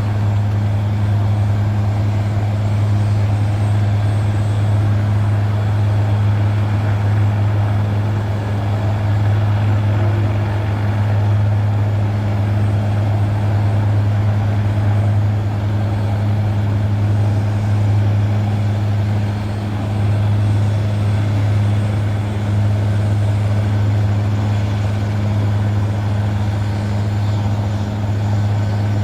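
Robinson R66 helicopter's Rolls-Royce RR300 turboshaft engine and rotors running steadily, a loud, even, low drone.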